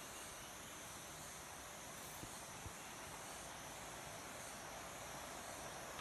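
Steady high-pitched insect chorus in forest, with a faint even rushing noise underneath. Two faint knocks a little over two seconds in.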